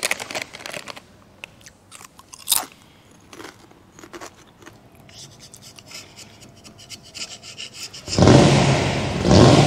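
Light clicks and rustles of a scraper being handled on the bench. About eight seconds in, a supercharged, 1500-horsepower Holden VL Calais engine suddenly starts running loudly nearby.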